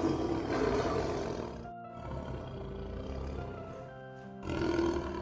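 Two loud animal calls over steady background music: a longer rough call at the start lasting under two seconds, and a shorter one near the end.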